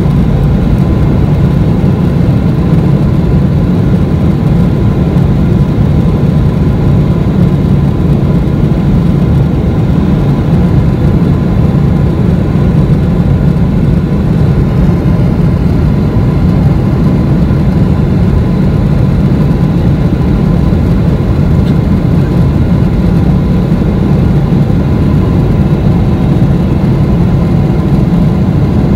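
Boeing 777-300ER's GE90-115B turbofan engines heard from inside the cabin at climb power after takeoff: a steady, loud, deep roar with faint steady whining tones above it.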